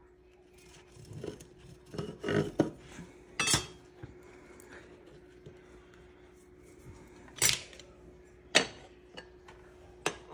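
Knives and a glass butter dish being handled on a kitchen counter: a handful of separate sharp clacks and clinks with quiet gaps between them, over a faint steady hum.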